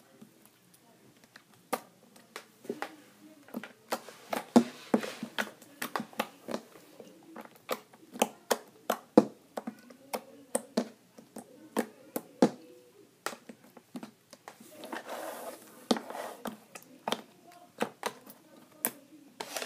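Hands squishing and pressing a large blue lotion slime made with glitter glue, giving an irregular run of sharp clicks and pops, with a softer squish around three-quarters of the way in.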